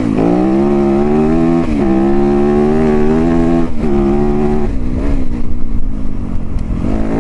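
Yamaha YZ250FX dirt bike's single-cylinder four-stroke engine pulling under load on a trail ride, its note climbing and then dropping back several times, about every one to two seconds, as the throttle is rolled on and off.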